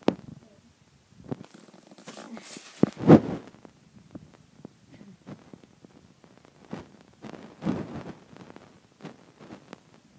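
Irregular soft rustling and scuffing of a plush teddy bear costume and a blanket moving against a rug, in scattered bursts, the loudest about three seconds in.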